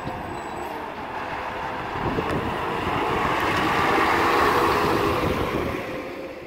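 A 2015 Crane Carrier LET2 rear-loader garbage truck with a Heil PowerTrak body drives by. Its engine and tyres grow louder as it turns toward and passes close to the microphone, then the sound fades away near the end.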